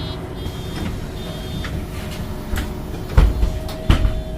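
MAN NG273T4 LPG articulated bus running, heard as a steady low drivetrain rumble with a faint steady whine. A faint high beep sounds twice in the first second and a half, and two heavy low thumps come about three and four seconds in.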